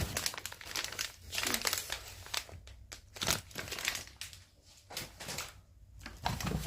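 Grocery packaging rustling and crinkling in irregular bursts as items are handled and unpacked from the delivery.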